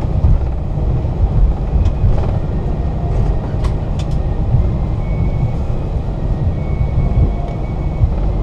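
Cabin noise of an Airbus A321 taxiing: a steady low rumble from the idling engines and the rolling airframe, with a few faint clicks.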